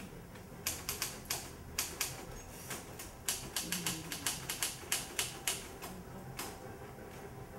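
Manual typewriter being typed on: sharp key strikes in irregular runs with short pauses between.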